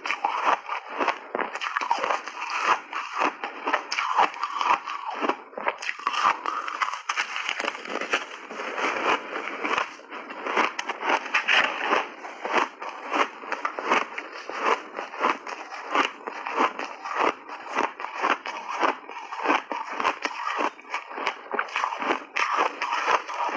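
Refrozen block ice being bitten and chewed close to a clip-on microphone: a fast, dense run of loud crunches and crackles, many a second, with no let-up.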